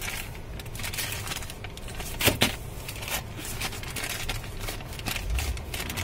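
Clear plastic parts bag crinkling and rustling in the hand, with scattered crackles and two sharper clicks a little over two seconds in.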